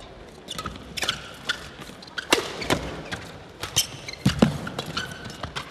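Fast men's doubles badminton rally: a quick run of sharp racket-on-shuttlecock hits, about one every half second, with short squeaks of players' shoes on the court.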